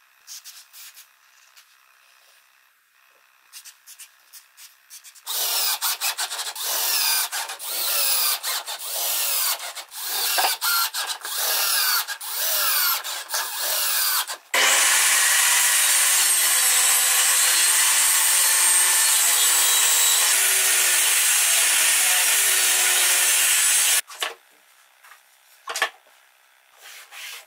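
Woodworking sounds: light handling clicks, then a run of uneven rubbing strokes on wood that sound like hand sawing or filing. About halfway through, a power tool starts and runs steadily and loudly, then stops suddenly a few seconds before the end.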